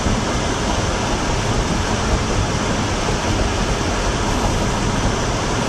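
Steady road and engine noise heard from inside a moving car's cabin, an even rushing hiss with no changes.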